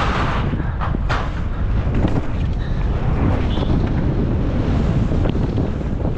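Wind buffeting a helmet-mounted camera microphone as a downhill mountain bike rolls fast over perforated steel deck plates, a steady low rumble with a few sharp knocks from the bike.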